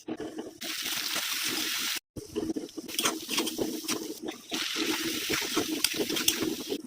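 Liquid cooking in a pan for egg curry: a steady sizzling hiss with many small pops and bubbling. It is cut off for an instant about two seconds in, then goes on.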